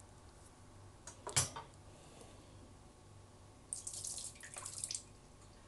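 Water splashing and dripping in two short spells, with a sharp knock about a second in.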